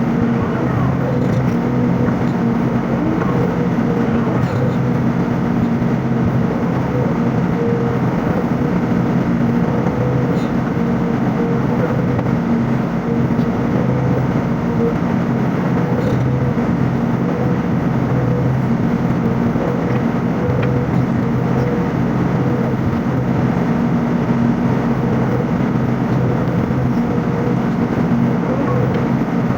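Sany SY55C mini excavator running steadily while digging, its diesel engine's drone holding a constant pitch.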